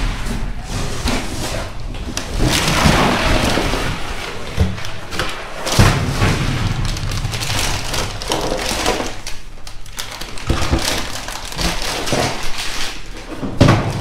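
Rummaging through cardboard boxes and plastic food packaging in a metal dumpster: steady rustling and crinkling with irregular knocks, and louder bangs about six seconds in and near the end.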